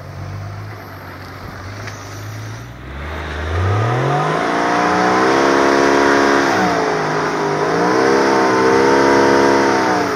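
Off-road 4x4 trial vehicle's engine ticking over, then revved up about three seconds in and held at high revs, dipping briefly in the middle and falling off near the end.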